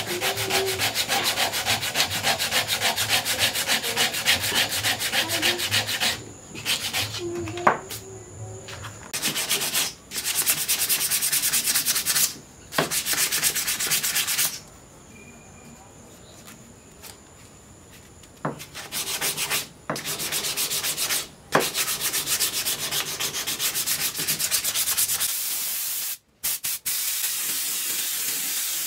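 Sandpaper rubbed by hand over a wooden knife handle in rapid back-and-forth strokes, in several bursts with short pauses. Near the end the sanding gives way to a steady hiss like an aerosol finish being sprayed.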